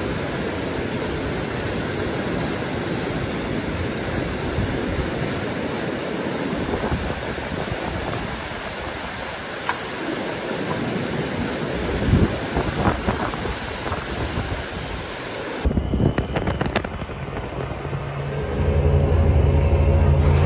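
Steady rushing noise with a few knocks about twelve seconds in. It breaks off abruptly, and near the end a low, steady machine hum begins.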